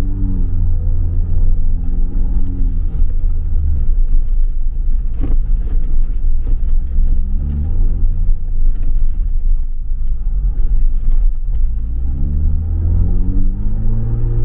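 Ford Bronco's engine heard from inside the cab while driving a dirt track, over a steady low rumble of the road. The engine's pitch climbs three times as it accelerates and drops back in between.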